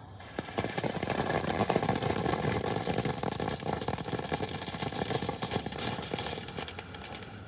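Novelty tank firework going off on the ground: a dense run of rapid crackles and sputtering over a steady hiss. It starts just after the fuse burns down and tapers off near the end.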